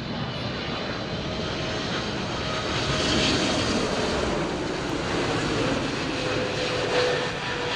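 Boeing 777-300ER's GE90 jet engines during landing: a steady rushing jet noise that swells about three seconds in and again near the end, with a faint whine.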